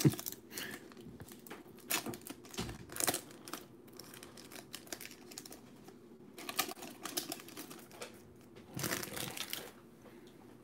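Foil wrapper of a 2019-20 Panini NBA Hoops basketball card pack crinkling and tearing as it is opened by hand, in several short spells of crackle with quieter gaps between.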